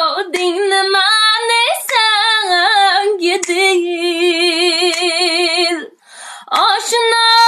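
A woman singing unaccompanied in Uzbek, drawing out long held notes with a wavering vibrato and ornamented turns. She breaks off for a breath about six seconds in, then comes back on a higher note.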